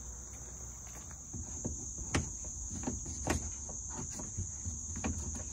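Steady high-pitched insect chorus, such as crickets, shrilling without pause. From about a second in, irregular knocks and clunks come every half second or so.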